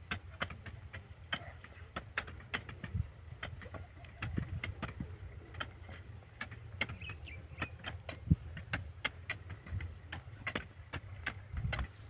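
Hand hoes striking and chopping into dry, freshly ploughed soil, many short sharp strikes in an irregular rhythm from several workers at once, over a steady low rumble.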